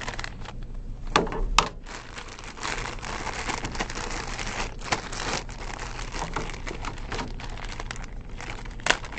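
Plastic packaging crinkling and rustling as a camcorder's two-piece AC power adapter is unwrapped and handled, with a few sharp clicks along the way.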